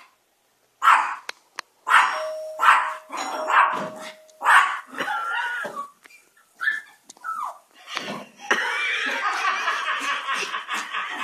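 Chihuahua barking: a string of short, sharp barks over the first few seconds, then a few gliding, whining yips. A steady, busier sound fills the last few seconds.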